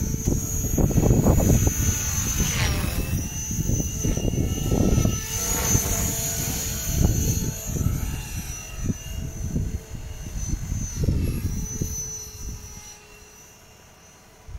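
RC stunt helicopter flying aerobatics. Its high whine dips and rises in pitch as it manoeuvres, over irregular low rumbling gusts, and it fades near the end.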